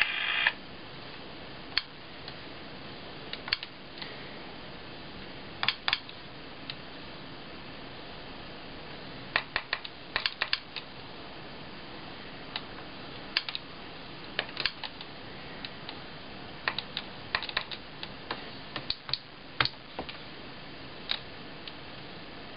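Light plastic taps and clicks at irregular intervals, some in quick clusters, as a Sharp Mobilion HC-4500 handheld PC is worked with a stylus, over a steady faint hiss.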